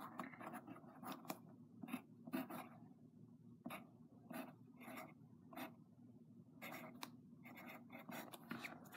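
Pen writing on paper: faint, short, irregular scratching strokes.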